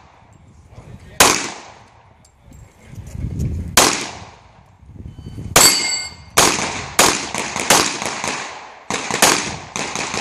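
Pistol shots fired at steel targets, each with an echoing tail: a few spaced shots, then quick strings of shots in the second half. One shot about halfway through is followed by a brief metallic ring from the steel.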